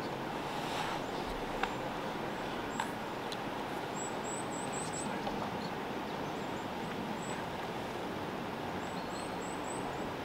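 Forest ambience: a steady rushing hiss, with two short runs of very high, thin bird chirps, one about four seconds in and one near the end. A couple of faint clicks come in the first few seconds.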